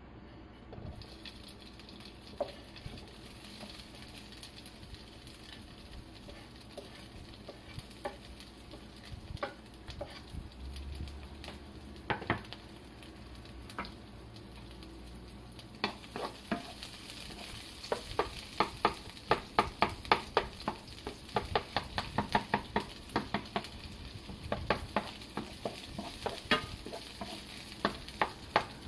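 Diced ingredients sizzling in hot oil in a nonstick frying pan, the frying hiss starting about a second in as they go in. Over the second half a wooden spatula stirs them, with a rapid run of clicks and scrapes against the pan.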